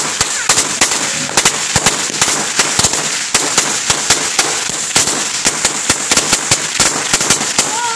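A 16,000-firecracker roll going off in a long, unbroken string of sharp bangs, many to the second in an irregular rattle.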